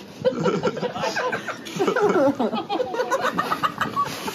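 Men chuckling and laughing, with some indistinct talk.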